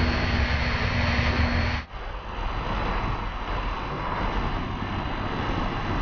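Onboard audio from an electric RC glider: the motor and propeller drone steadily with a high whine, mixed with air rushing past, for about two seconds. It then breaks off abruptly into airflow rush alone, without the motor tone.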